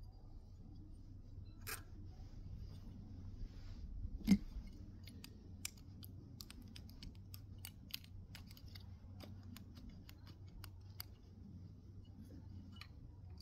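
Light clicks and taps of small metal parts being handled and fitted, with one louder knock about four seconds in, over a steady low hum.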